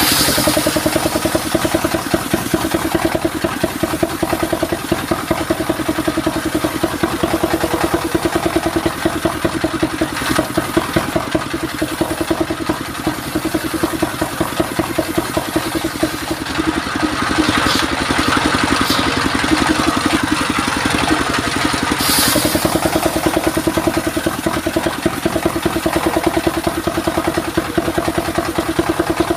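Stationary engine running steadily with a rapid even pulse, driving a belt-fed circular saw as a mahogany board is pushed through the blade. A few short, sharp knocks come in the second half.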